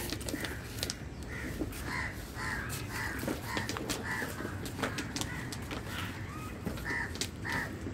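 Crows cawing over and over, about two calls a second, with a short break a little past the middle. Faint scattered clicks run underneath.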